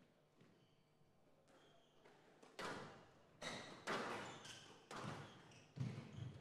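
Squash rally: racket strikes and the ball hitting the walls, faint at first, then about five sharp, echoing hits roughly one a second from about two and a half seconds in.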